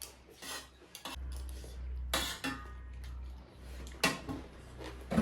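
Dishes and utensils clinking and scraping on a plate while a meal is eaten, in scattered short knocks, the sharpest about two seconds in and again about four seconds in.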